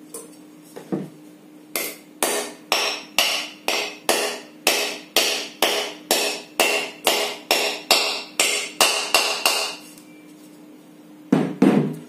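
A hammer tapping a new ball bearing into its seat in a ceiling fan's metal motor cover: a run of about seventeen ringing blows, roughly two a second, then a couple of heavier knocks near the end.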